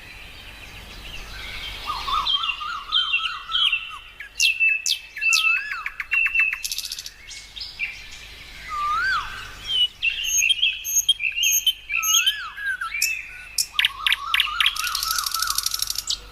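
Several birds calling together: repeated rising-and-falling whistles, short trills and chattering chirps overlap throughout, with a high buzzy rattle near the end.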